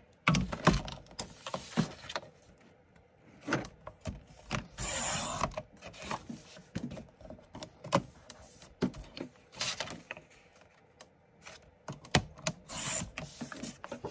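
Cardstock being cut on a Westcott Carbo Titanium sliding paper trimmer: a few short swishes of the blade carriage run along its rail, the clearest about five seconds in, among sharp taps and knocks of the trimmer and paper being set down and handled.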